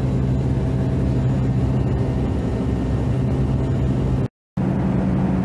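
Cabin noise of a McDonnell Douglas DC-9 airliner in flight: the jet engines and airflow make a steady low drone with a constant hum. The sound cuts out for a moment about four seconds in, then comes back with a slightly higher hum.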